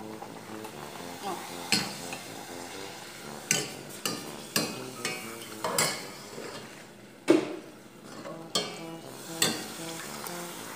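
Pastel dough sizzling in hot frying oil in a stainless steel pot, while a metal spoon clinks and scrapes against the pot about eight times, the loudest clink a little past seven seconds in.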